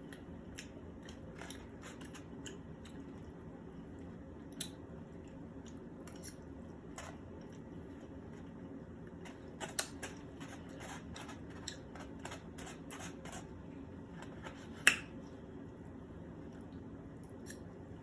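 Irregular light clicks and taps, with one sharper click near the end, over a steady low hum.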